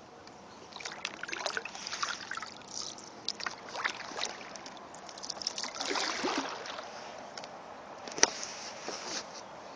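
Kayak paddling: water splashing and dripping off the paddle in irregular bursts, with a sharp knock about eight seconds in.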